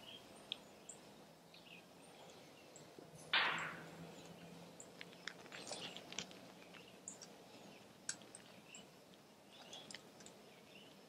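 Faint clicks of a TPMS sensor and its lock nut being turned by hand on a tire's valve stem, with one short hiss of escaping air a little over three seconds in that soon fades, the valve leaking until the sensor is screwed on tight.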